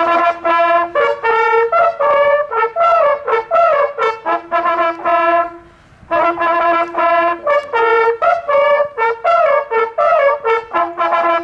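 A group of hunting horns playing a hunting fanfare in unison, in two phrases of quick successive notes separated by a short break about five seconds in. Ceremonial horn calls opening a driven hunt.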